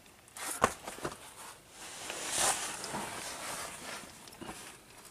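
Rustling and scraping handling noise, with a sharp click about half a second in and a few lighter knocks.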